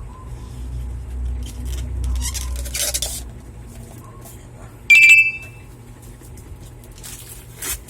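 Short bursts of rustling noise and one brief, sharp high-pitched squeak about five seconds in, the loudest sound, over a low rumble in the first few seconds.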